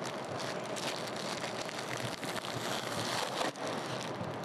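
Clear plastic packaging bag crinkling and rustling steadily as it is handled, close to a clip-on microphone.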